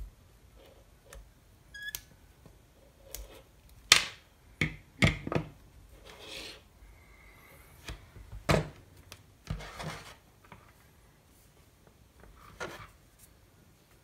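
Wire stripper cutting and stripping a braided USB charging cable: a series of sharp snips, clicks and knocks, the loudest about four to five seconds in, with brief rustling of the cable and wires between.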